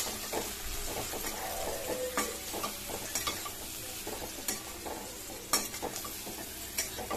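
Egg masala sizzling in a kadai while a metal spatula stirs and tosses fried egg pieces with onion and tomato. The spatula scrapes the pan about once a second over the steady sizzle.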